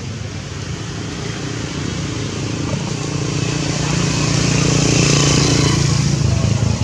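Engine of a passing motor vehicle running steadily, growing louder to a peak about five seconds in and easing off near the end.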